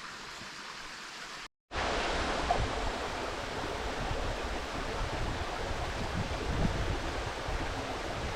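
Steady rushing of creek water, then, after a brief dropout about a second and a half in, the louder, steady rush of a tall waterfall falling close by, with an uneven low rumble underneath.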